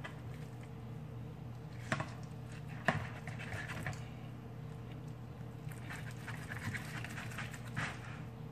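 Dull kitchen knife cutting and scraping through the fat on a raw pork shoulder, in short scratchy spells, with two sharp knocks about two and three seconds in. A steady low hum runs underneath.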